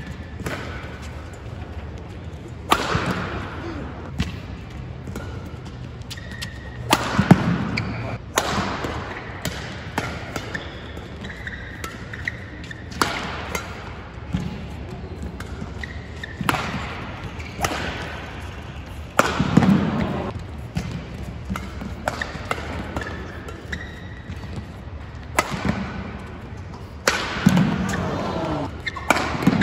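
Badminton rally: sharp racket strikes on the shuttlecock at irregular intervals, the hardest hits echoing in a large hall, with brief shoe squeaks on the court mat.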